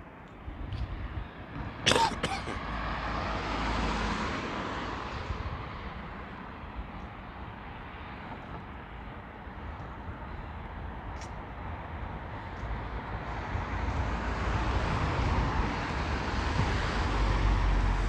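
Road traffic passing along a town street, with cars swelling past about three to five seconds in and again near the end. A sharp knock comes about two seconds in.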